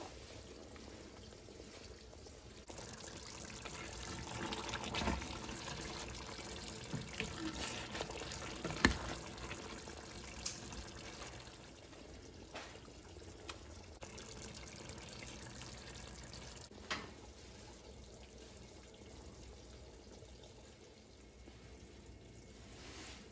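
Chickpea stew gravy being ladled from a pot and poured into an aluminium foil tray: liquid sloshing and dribbling, with a few sharp knocks of the ladle. The loudest knock comes about nine seconds in.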